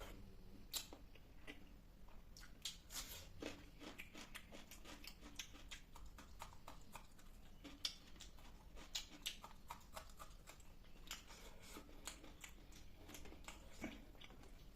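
Close-up eating sounds of fish curry with rice: soft chewing with many small, irregular wet mouth clicks and smacks.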